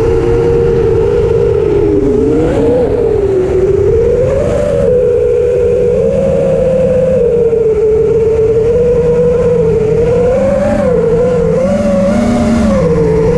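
Multirotor drone's electric motors and propellers whining steadily. The pitch wanders up and down as the throttle changes.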